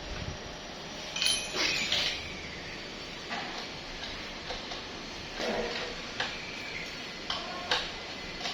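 Metal tools and small metal parts clinking and tapping during work on a welding transformer: about half a dozen sharp knocks, some with a brief metallic ring, over a steady background hiss.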